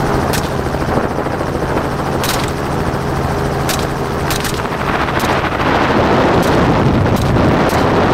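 Helicopter in flight with its doors off: a steady drone of rotor and engine under heavy wind rush. The wind noise swells a little louder about two-thirds of the way through. About nine faint, sharp cracks are scattered through it.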